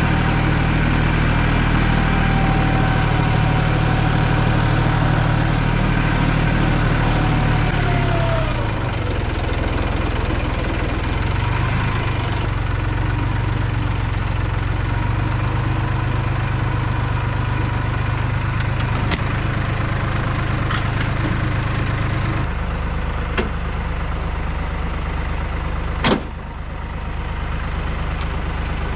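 Ford 1710 tractor's three-cylinder diesel engine running steadily, then easing down to a slower idle about a quarter of the way in. A single sharp metallic clank stands out near the end.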